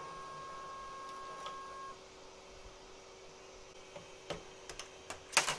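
The JG Aurora 3D printer's extruder stepper motor whines at one steady pitch as it drives the filament back out of the printer, and stops about two seconds in. Near the end there are a few sharp clicks and a rattle as the freed filament is handled.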